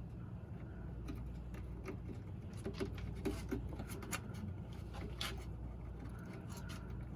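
Scattered light clicks and scrapes of a spring-loaded cap being worked by hand as it is pushed down and twisted, over a steady low hum.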